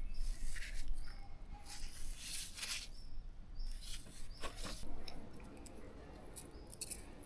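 Scattered light clicks and short scrapes as small parts are handled and fitted by hand.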